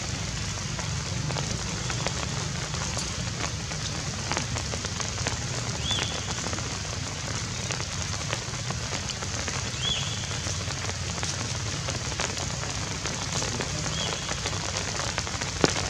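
Light rain pattering steadily, with scattered drips, three short high downward chirps about four seconds apart, and a sharp tick near the end.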